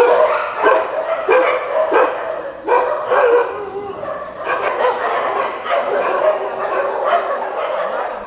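Several caged dogs barking and yelping over one another in a dense, unbroken chorus.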